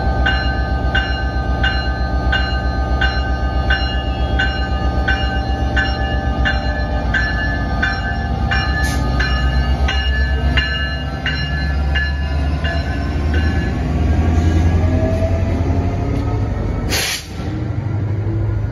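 NJ Transit PL42AC locomotive's EMD 16-710 two-stroke diesel running under load as it pulls a commuter train away from a standstill, its pitch climbing in the second half as it accelerates. Grade-crossing bells ring steadily, about three strikes every two seconds, then stop about two-thirds of the way through. A short burst of hiss comes near the end.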